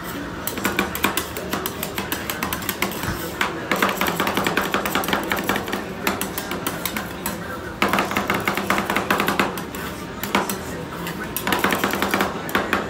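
Metal spatulas chopping and tapping on the steel cold plate of a rolled-ice-cream counter: rapid runs of sharp metallic clacks in several bursts with short pauses between.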